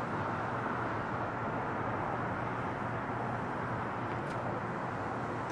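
Airbus A330 airliner's jet engines at takeoff power as it climbs out, heard from below as a steady rushing noise with a low hum underneath.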